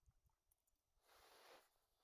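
Near silence, with a faint, brief soft hiss about a second in.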